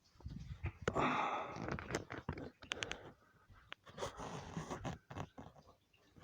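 Someone rummaging through objects in search of something: irregular rustling and clattering, with a quick run of sharp clicks and knocks near the middle.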